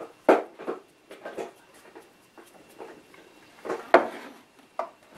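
Scattered clicks and knocks of kitchen items being handled and set down on a countertop, the loudest about four seconds in.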